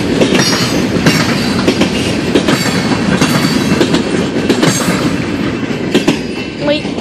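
Freight train of boxcars rolling past close by: a steady loud rumble with rapid clattering wheel clicks and a few brief high squeals. The sound eases slightly as the last car passes about six seconds in.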